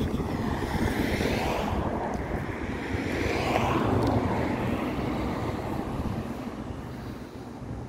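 Road traffic passing close by: vehicles driving past on the road, swelling about a second in and again, louder, around three to four seconds in, then fading away.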